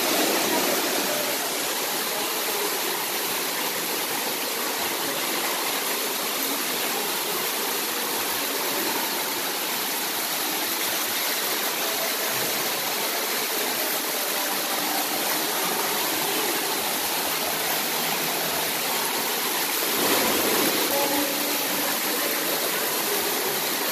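Steady rush of splashing water from an indoor pool's water-play features, buckets and spouts pouring water into the pool, with the hot tub's jets churning.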